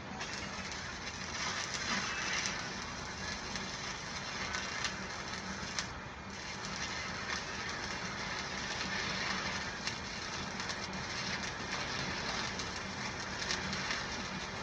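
Stick (SMAW) welding arc crackling steadily as the electrode burns down while a bead is run, a dense run of sharp little pops and sputters.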